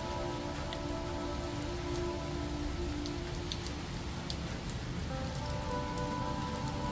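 Steady rain falling on wet brick paving and a wire kennel.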